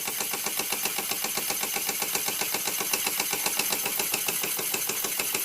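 Bing 10/12/2 toy live-steam engine running fast under steam and driving a small toy grinder, with a rapid, even mechanical beat.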